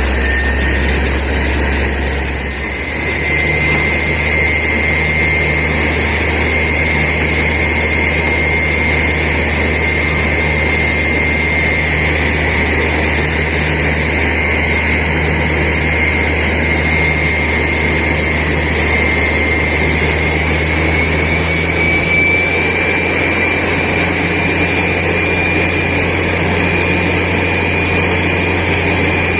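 Borewell drilling rig and its air compressor running steadily under load: a heavy low engine drone with a high whine above it that rises slightly in pitch.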